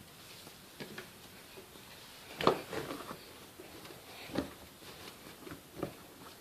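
Siemens washing machine starting its main wash: a few irregular clicks and knocks from the machine, the loudest about two and a half seconds in, with no steady running noise.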